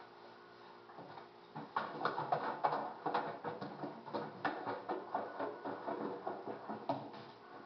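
Rapid, irregular scuffling and clicking, several small knocks a second, starting about two seconds in and stopping near the end, over a steady low hum.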